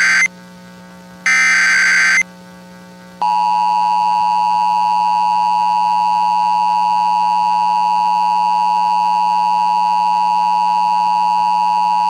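Emergency Alert System tones. The end of one SAME header data burst and then the last one, each a harsh digital warble lasting about a second. At about three seconds in, the steady two-tone EAS attention signal begins and holds.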